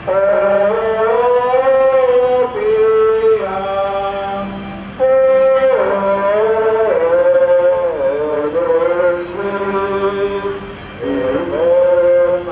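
A high voice singing a slow melody in long held, wavering notes, over a faint steady low hum. The singing breaks off briefly twice, about five and eleven seconds in.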